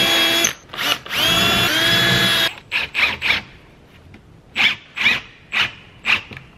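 Cordless drill-driver countersinking and driving screws into a plywood furniture top. It gives a short run and then a longer run of motor whine that rises as it spins up and holds steady, then a string of short trigger bursts as the screws are driven home.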